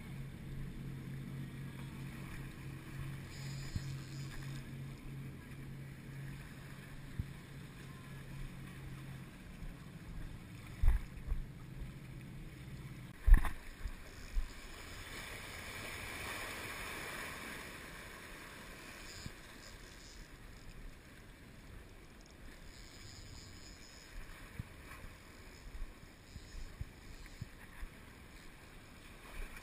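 A boat's engine drones steadily for the first part and cuts off with a loud knock about thirteen seconds in. Seawater then washes against the rocks of the jetty, with a few knocks as the gear is handled.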